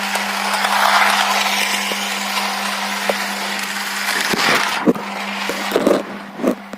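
Battery-powered toy train running on its track: a steady motor hum under a rattling whir. A few sharp knocks come between about four and six and a half seconds in, as the whir dies down.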